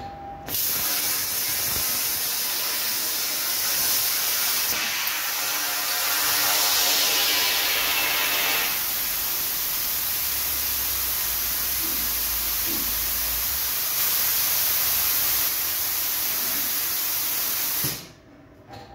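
Steady, loud hiss of compressed air blowing through the torch of a Hypertherm Powermax 45 plasma cutter with no arc lit. It starts about half a second in, grows brighter for a few seconds in the middle, and cuts off sharply near the end.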